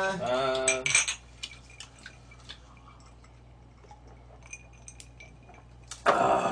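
Drinking glasses clinking together in a toast about a second in, right after a drawn-out shouted "짠". Then quieter table sounds with a few small clinks of glasses and dishes, and a loud breathy exclamation near the end.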